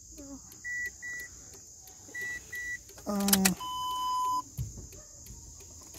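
Toyota Wish's dashboard warning chime: pairs of short, high beeps repeating about every second and a half. About three seconds in, a brief voice sound cuts in, followed by one longer, lower beep.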